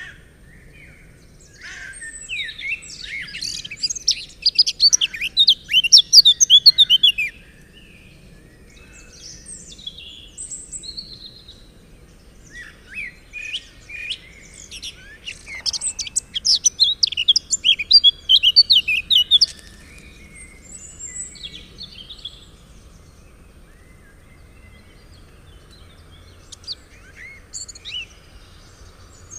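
Songbird singing: two long runs of rapid, high, sliding notes, with scattered short chirps in between.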